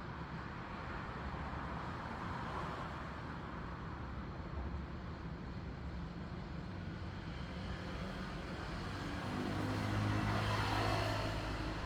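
Steady road traffic noise, with a car passing close and louder near the end.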